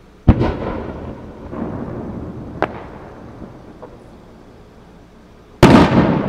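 Aerial firework shells bursting: a loud boom shortly after the start followed by a long fading rumble, a sharp crack near the middle, and another loud boom near the end.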